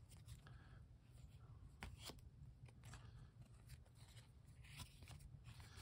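Faint rustling and a few soft clicks of cardboard basketball trading cards being slid off a stack one at a time, over a low steady hum.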